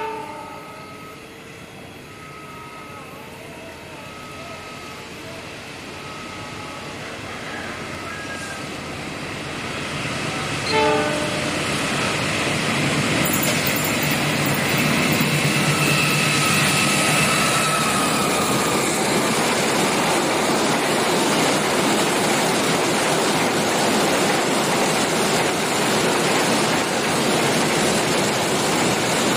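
Diesel-hauled container freight train approaching and passing: a short horn blast right at the start and another about eleven seconds in, as the rumble grows steadily louder. The locomotive's engine goes by a little after the second blast, then the loaded container wagons roll past with a steady, loud rush of wheels on rail.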